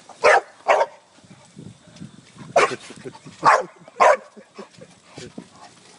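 A dog barking while playing on a trampoline: five short, loud barks, two in quick succession near the start, then three more spaced about half a second to a second apart.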